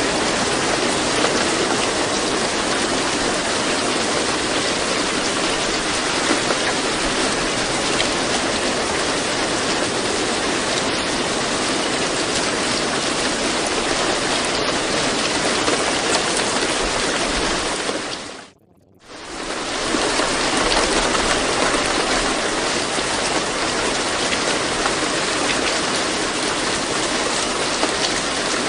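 Steady rain sound, an even hiss of rainfall. About two-thirds of the way through it fades out to near silence for about a second, then fades back in.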